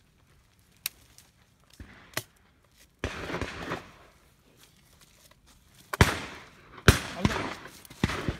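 Shotgun shots at driven partridge. There are two faint distant reports early on, then loud reports about three, six, seven and eight seconds in, each trailing off in echo.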